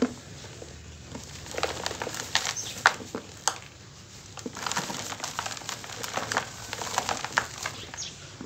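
Dry cement blocks being squeezed and broken apart by hand, crunching and crackling with gritty snaps in two bursts. A louder snap comes about three seconds in.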